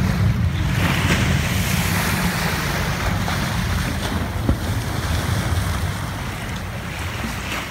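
Small ocean waves washing in over shallow reef and sand, a steady hiss of surf, with wind noise on the microphone adding a low rumble.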